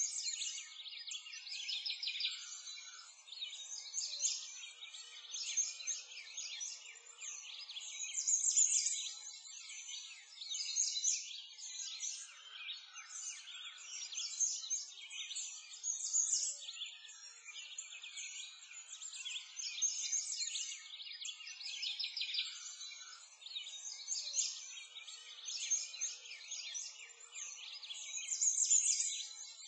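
A dense chorus of many small birds chirping and trilling continuously, with high, overlapping calls and no lower sounds beneath them.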